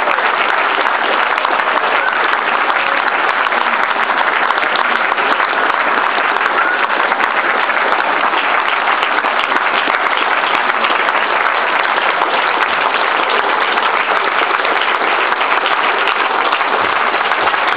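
Audience applauding, a dense and steady sound of many hands clapping that holds at the same level throughout.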